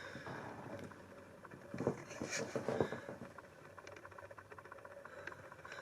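Faint handling noises: a few light knocks and rustles, the loudest about two to three seconds in, as the boxed cordless vacuum and its tools are handled.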